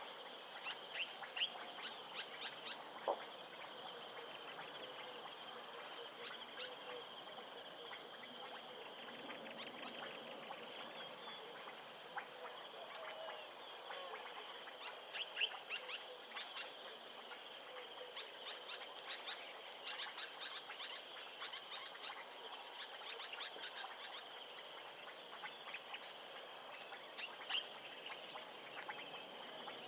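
Steady chorus of insects and frogs: a continuous high-pitched trill, with many short clicking calls scattered through it.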